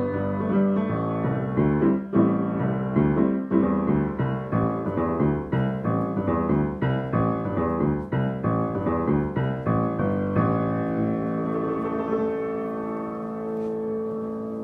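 Grand piano played: a quick run of struck notes, then a final chord about ten seconds in that is held and left to ring, slowly fading.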